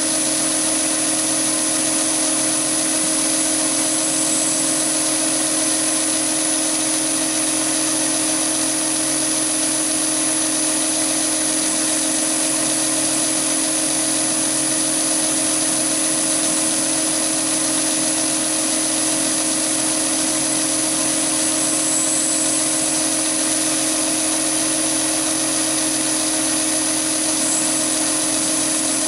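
Chinese mini lathe running steadily while a 5 mm solid carbide blue nano boring bar cuts a bore in 316 stainless steel: an even machine hum with a constant high whine over it.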